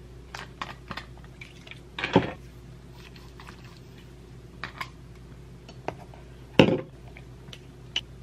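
Light clicks and taps from hands handling small objects, with two louder short rustling thumps, about two seconds in and again past six and a half seconds.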